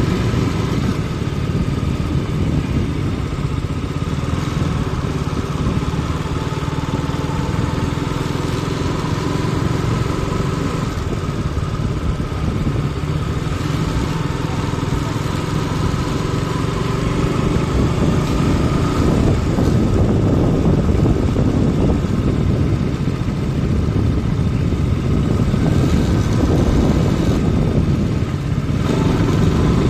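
Motorcycle engine running steadily, a little louder in the second half.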